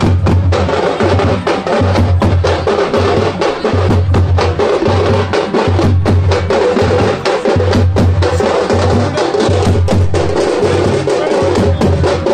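Music with a steady drum beat: deep bass thumps about twice a second under dense, clicking percussion.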